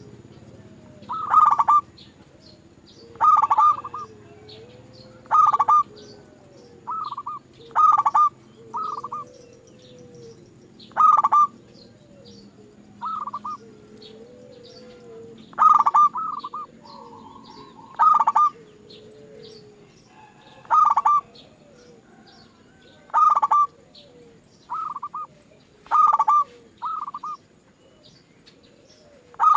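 Zebra doves (perkutut) cooing in a lure recording: short, clipped coo phrases near 1 kHz, repeated every second or two, with fainter softer calls and high chirps in between.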